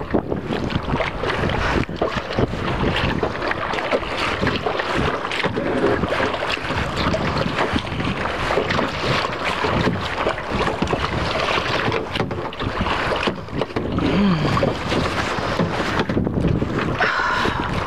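Wind buffeting the microphone over choppy lake water splashing and slapping against a plastic kayak as it is paddled.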